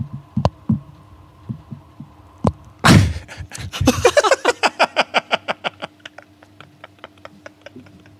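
Muffled low thumps and knocks from a microphone held in a man's mouth, a loud blast of sound on the microphone about three seconds in, then two men laughing hard in rapid 'ha' pulses that slowly die away.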